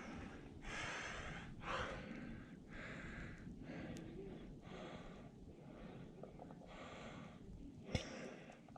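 A man breathing hard in regular, audible breaths, about one a second: catching his breath after heavy exertion.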